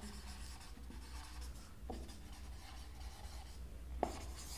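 Marker pen writing on a whiteboard: faint scratching strokes, with a light tap about two seconds in and another near the end, over a low steady hum.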